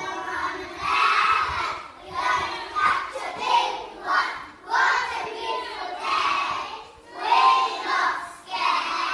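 A group of young children chanting together in unison, in short rhythmic phrases of about a second each with brief breaks between.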